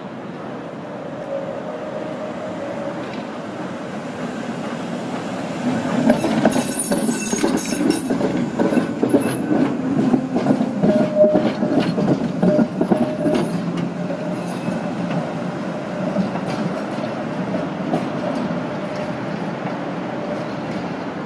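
CKD Tatra tram passing close by on curved track, its steel wheels clattering over the rails and points. It grows loud about six seconds in and fades after about fourteen seconds, with a faint steady whine underneath.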